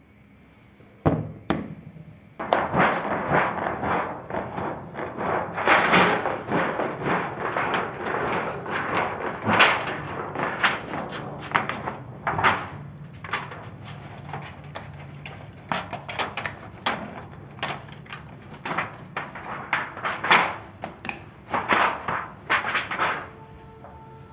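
Compound-action tin snips (aviation-style metal sheet cutter) cutting through thin galvanized steel sheet: a long run of crunching and crackling as the blades shear the metal, with many sharp snips as the jaws close, starting a couple of seconds in and stopping just before the end.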